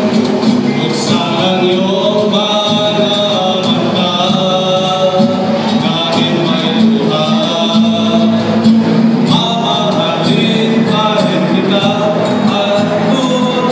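Several men singing a song together in harmony into microphones, with an acoustic guitar and keyboard accompanying them.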